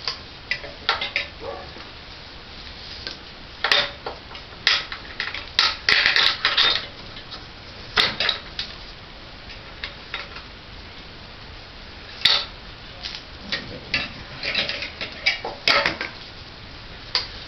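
Irregular metallic clinks, clicks and rattles of mounting hardware and a strap being handled and fastened, some in quick clusters, as a small engine is fitted onto a bicycle frame.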